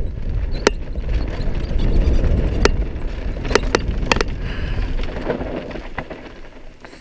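Downhill mountain bike rolling fast over loose dirt and gravel: a continuous tyre and wind rumble, with sharp clacks of the chain and bike parts rattling over bumps several times. The rumble fades over the last second or two.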